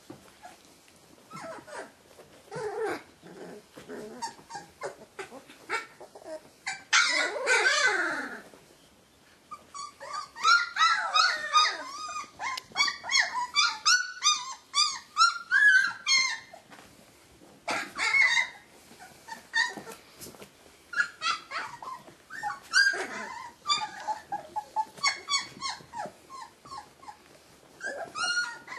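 A litter of three-week-old Rhodesian Ridgeback puppies whining, squealing and yipping in many short high calls. About seven seconds in comes one longer falling whine, and the calls are thickest a little past the middle.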